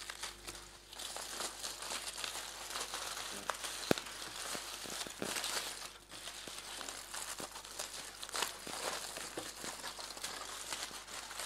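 Aluminium foil being unwrapped and crumpled by hand: a continuous, irregular crinkling with a few sharper crackles.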